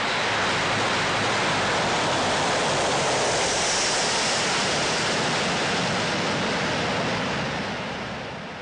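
Antonov An-22's four turboprop engines with contra-rotating propellers, heard as a loud, steady rushing roar while the aircraft rolls out after touchdown, fading in the last second.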